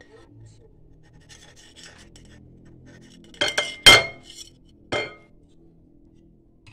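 Metal cutlery clinking against a ridged glass plate as a slice of banana cake is served onto it: faint scraping, then three sharp clinks within about two seconds, the second loudest and ringing briefly.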